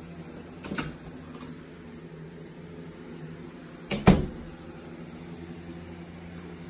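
Closet door pushed shut by hand, closing with a sharp double knock about four seconds in, after a lighter click about a second in. A steady low hum runs underneath.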